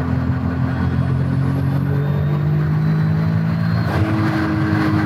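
Turbocharged VW Golf 3 VR6 engine, heard from inside the cabin, pulling hard at about 2.4 bar of boost with its pitch climbing steadily as revs rise toward the redline. About four seconds in, the note changes abruptly with a short burst of hiss.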